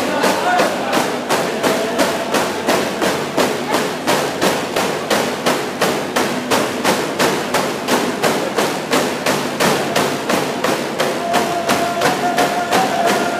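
Hand drums beaten in a steady, even rhythm of about three beats a second for a circle line dance, with a voice singing held notes near the end.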